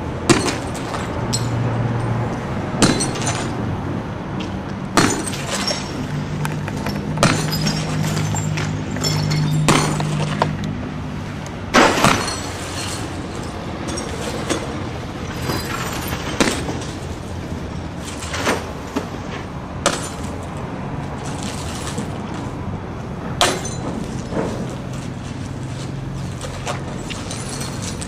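Car windshields being smashed with a long-handled tool, glass cracking and crunching at each blow, about one strike every second or two. A steady low hum runs underneath.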